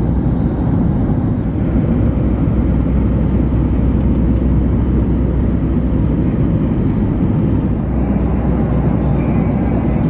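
Steady cabin noise of a Boeing 737 MAX airliner at cruise: a low, even rush of airflow and engine noise heard from a passenger seat.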